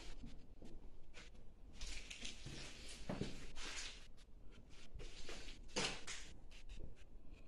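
Irregular scuffing and crunching footsteps on a debris-strewn floor, with rustles and a few light knocks.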